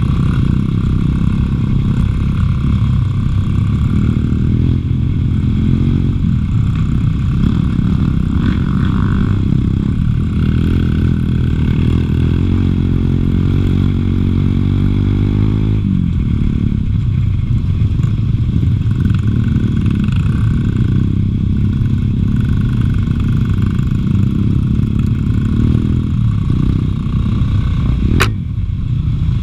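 Bosuer 250cc single-cylinder four-stroke dirt bike engine running while being ridden, its pitch rising and falling with the throttle. About halfway through, the pitch climbs steadily for several seconds and then drops back. There is a single sharp knock near the end.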